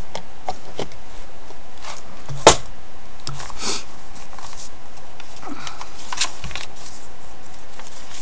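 Paper journal pages and cards being handled and turned: light rustling and soft taps, with one sharper tap about two and a half seconds in.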